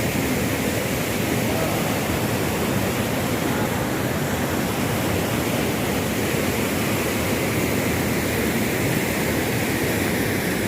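Swollen river water rushing steadily.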